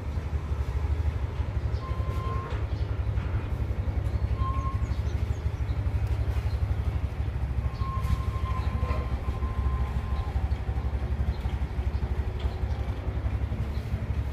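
A steady low rumble fills the background, with a few faint short, thin bird notes about two seconds in, again near four and a half seconds, and a short run between eight and ten seconds in.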